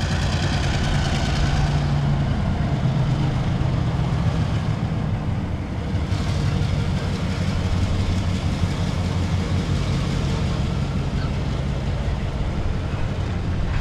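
Cedar Rapids and Iowa City Railway diesel freight locomotive running as it passes with its train, a steady low engine note.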